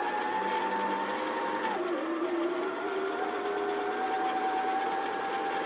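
Janome XL601 sewing machine motor running to wind a bobbin, with the needle disengaged so only the bobbin winder turns. It makes a steady whine that drops slightly in pitch about two seconds in, then holds.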